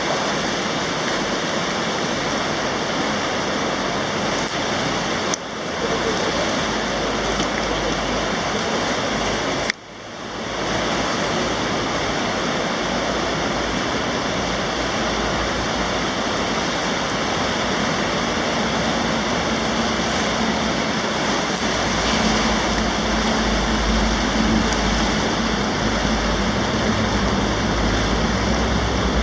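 Steady rush of fast-flowing river water over rapids, with a deep rumble in the low end from about halfway through. The sound cuts out briefly twice, about 5 and 10 seconds in.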